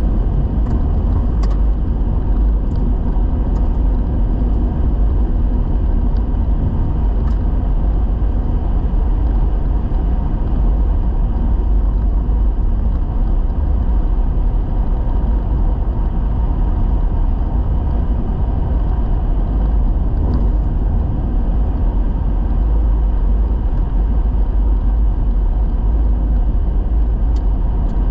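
A vehicle driving along a gravel road: a steady, loud, low road rumble with tyre and wind noise, and a few sharp ticks scattered through it.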